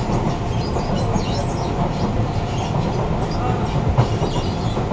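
Cabin running noise of a Siemens C651 metro train car under way: a steady rumble from the wheels and track, with faint high tones sliding in pitch and a sharp knock about four seconds in.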